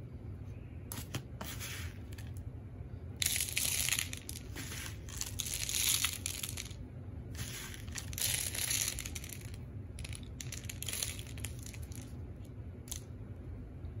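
Dry birdseed rustling in several bursts as it is scooped by hand from a plastic tub and pressed onto a peanut-butter-coated cardboard tube.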